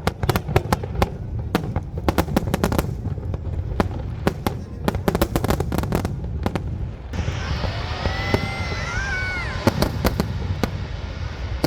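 Fireworks display: rapid, irregular bangs and crackles of bursting shells. From a little past halfway, a hiss joins in, with high whistling tones that rise and fall.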